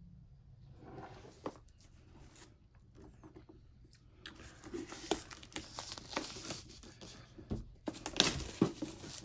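Cardboard board-game box being handled and its lid lifted off: faint clicks at first, then rustling and crinkling from about four seconds in, with a few sharp knocks near the end.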